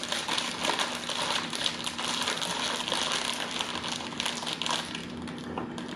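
A crinkly plastic snack bag being handled and squeezed in the hands, rustling and crackling steadily.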